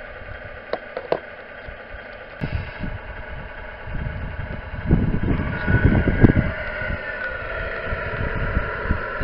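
Radio-controlled model truck running: a steady motor whine with a few held tones. Low rumbling grows louder partway through, and there are two sharp clicks about a second in.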